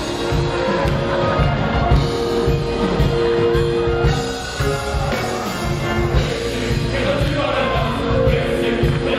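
Gospel choir and band performing: a steady drum-and-bass beat under long held chords, with singing.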